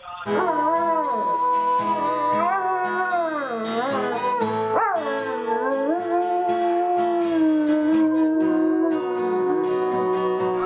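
A dog howling along with music, its howls gliding up and down over long held notes.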